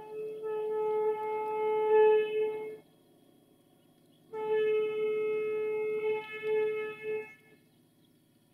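Train horn sounding two long steady blasts about a second and a half apart, with a third starting at the very end.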